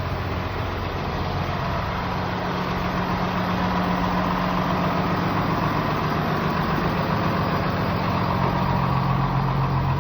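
A motor vehicle engine running steadily amid city street traffic noise, growing slightly louder through the stretch.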